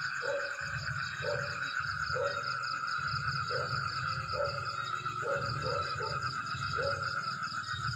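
Frog croaks, short calls repeating roughly once a second, over a steady high-pitched chorus of insects and frogs.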